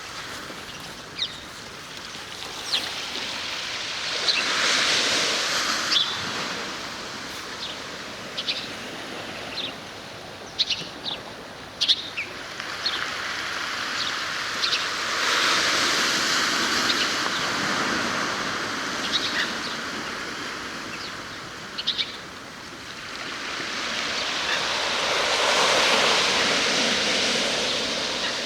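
Small birds chirping in short, scattered calls over the sea, with waves washing in three slow swells of surf.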